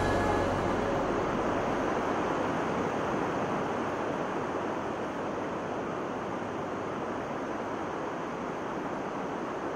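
Steady rush of flowing river water, with the last notes of music dying away in the first moment.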